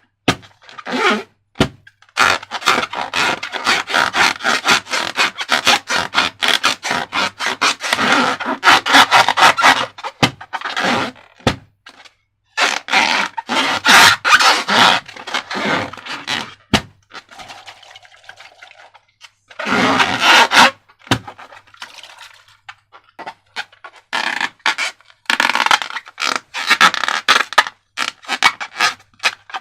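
Slime and rubber balloons handled by hand: a dense run of sticky crackles, small pops and scrapes, broken by a few short pauses.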